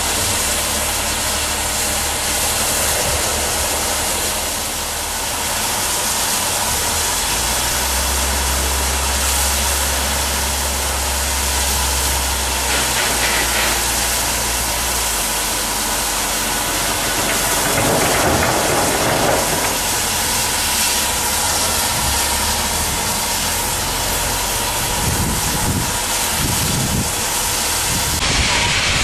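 LMS Fowler 4F 0-6-0 steam locomotive standing, hissing steam steadily, with a low engine hum underneath that is strongest for a few seconds near the middle.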